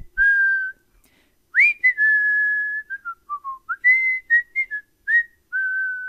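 A person whistling a wandering tune: held notes with slides up and down between them, broken into short phrases.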